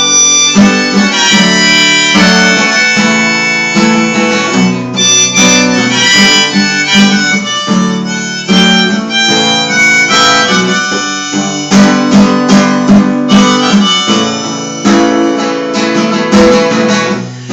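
Instrumental break of a slow acoustic song: a harmonica solo over strummed acoustic guitar, no singing.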